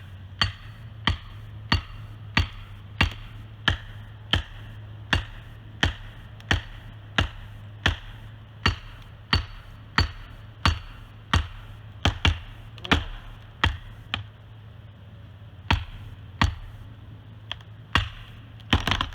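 A felling wedge being driven into a tree cut with a steady run of hard blows, about one and a half a second, pausing briefly about two-thirds of the way through. A steady low hum runs underneath.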